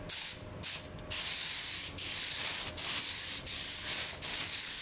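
Anest Iwata Supernova WS-400 HVLP air spray gun with a 1.4 nozzle hissing as it lays down a full coat of two-component clearcoat. The spraying comes in steady passes of about a second each, broken by brief gaps where the trigger is let off between strokes, after two short bursts at the start.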